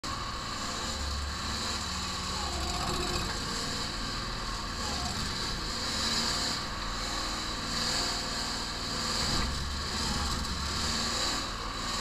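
Engine of a home-made 4x4 backhoe excavator running steadily while the hydraulics work the boom, with a high whine that swells and fades several times. Its tank has been run low on oil.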